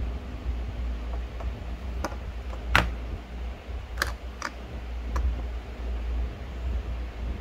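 A handful of short, sharp plastic clicks and taps as DJI Mic transmitters and their charging case are handled and set down on a desk. The loudest click comes a little under three seconds in, over a steady low hum.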